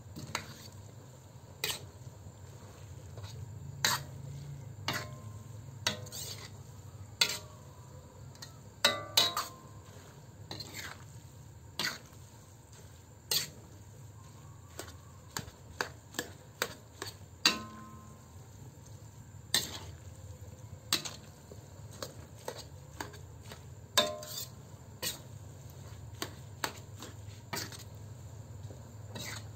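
A spatula stirring and tossing sotanghon glass noodles with vegetables in a pan. It scrapes and knocks against the pan at irregular intervals, about once a second, and some strikes ring briefly.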